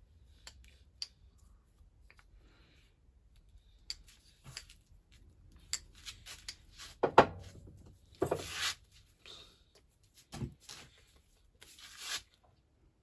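Scattered clicks, knocks and scraping or rustling noises of hands handling objects, with the loudest bursts about seven and eight seconds in.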